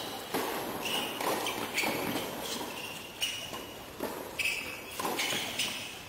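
Tennis ball struck by rackets and bouncing on a hard court during a doubles rally: a string of about eight sharp pops at uneven intervals, starting with the serve, with players' footsteps on the court between them.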